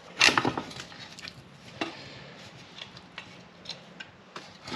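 Rear drum brake shoes and return springs clattering as they are lifted off a Toyota 60 series backing plate: one sharp metallic knock near the start, then a few light ticks of metal parts being handled.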